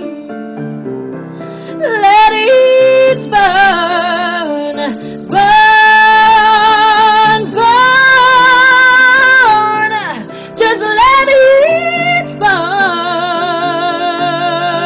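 A high singing voice doing wordless runs and long held notes with vibrato, sliding between pitches, over acoustic guitar chords.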